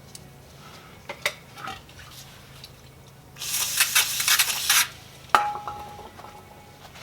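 Metal tools and parts clinking and rattling: a few light clicks, then a loud burst of rummaging clatter about halfway through, then a single metal clink that rings briefly.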